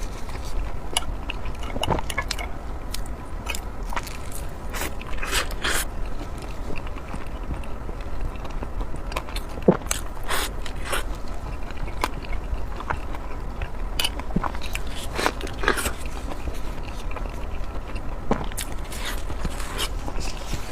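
Close-miked eating: a person biting and chewing food, with irregular sharp clicks and smacks from the mouth. A steady low hum sits underneath.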